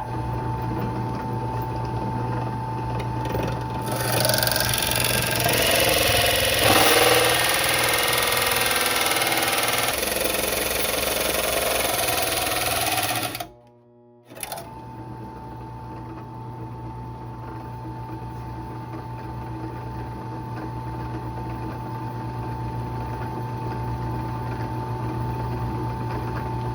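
Electric drill running with its bit grinding against the sheet metal of a toolbox, louder and harsher for several seconds as it bears down, stopping briefly about halfway, then running again steadily. The bit is cutting poorly because it is worn out.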